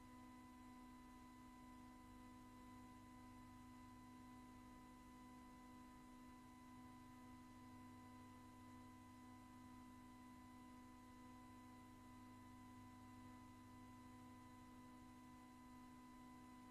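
Near silence: a faint, steady hum with a few fixed tones and no events.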